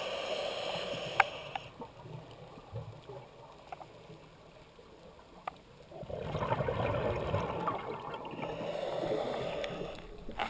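Scuba regulator exhaust heard underwater: a rush of exhaled bubbles for the first second and a half, a quieter few seconds while the diver breathes in, then a second, longer exhalation from about six seconds in. A few sharp clicks fall in the quiet stretch.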